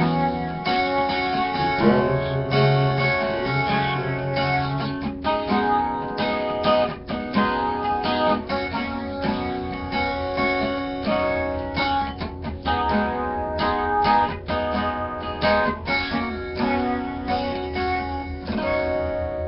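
Guitar music: plucked and strummed guitar playing a steady run of notes, fading near the end.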